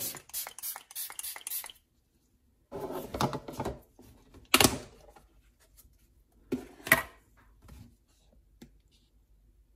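Hard plastic storage tubs and their lids being handled with gloved hands: clicks, knocks and rubbing of plastic, with a quick run of clicks at the start and a loud sharp click a little under halfway through as the lid comes off.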